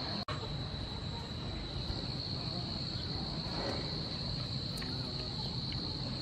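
Steady high-pitched trilling of insects in the surrounding vegetation, with a low background hum beneath it; the sound drops out for an instant near the start.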